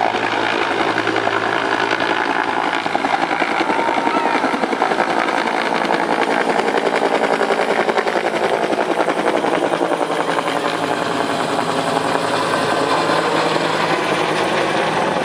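Helicopter overhead, its rotor giving a steady fast chop.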